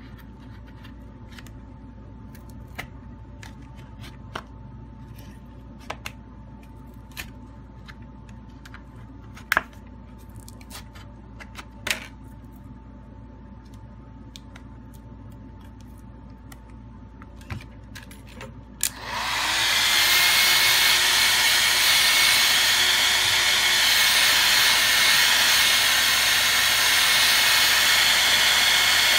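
Scattered light clicks and taps from fingers handling a phone on a work mat. About two-thirds of the way through, a hair dryer switches on and blows steadily, heating the phone's back glass to soften its adhesive.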